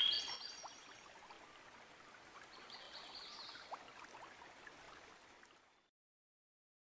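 The tail of background music fades out over the first second, leaving a faint stream-like hiss with a few short chirps. It cuts off to silence about six seconds in.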